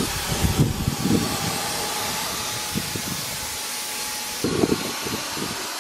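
Handheld Wagner electric paint sprayer running with a steady hiss as it sprays paint, with a faint steady motor tone underneath. Wind buffets the microphone in irregular low gusts.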